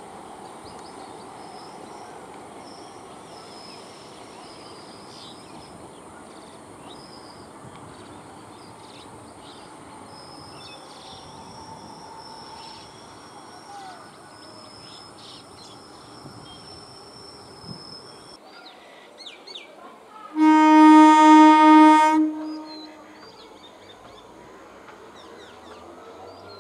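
Birds chirping over a steady low background. About twenty seconds in, an EMU train's horn sounds one loud, gently pulsing blast of about two seconds.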